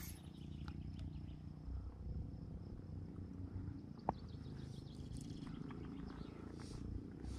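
Outdoor ambience: a steady low rumble with a faint, steady high insect drone, and one sharp click about four seconds in.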